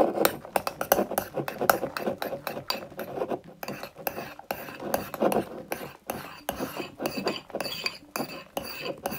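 Metal spoon stirring a thick, foamy slime mixture in a ceramic bowl, clinking and scraping against the bowl's sides in quick, irregular strokes.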